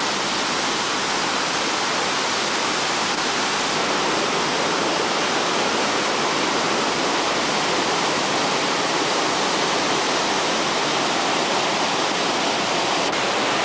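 A waterfall rushing steadily, water pouring over rock and splashing into a pool below.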